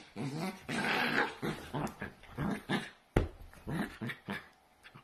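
Dachshund growling in play as it wrestles a person's hand: a run of short growls, with one sharp thump about three seconds in, then fading out near the end.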